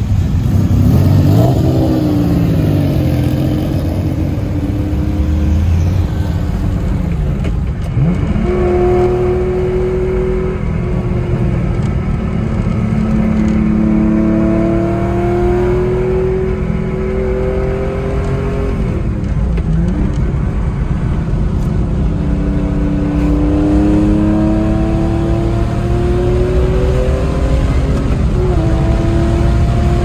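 1978 Porsche 911 SC's 3.0-litre air-cooled flat-six, with 964 cams, headers and a SuperTrapp exhaust, pulling away and accelerating through the gears, mostly heard from inside the cabin. Its note climbs steadily and then drops sharply at each upshift, several times over.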